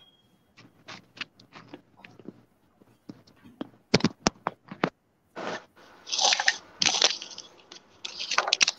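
Crackling and clicking on a video call's microphone line while an audio device is being adjusted, with sharp scattered clicks at first and denser crackly bursts in the last few seconds.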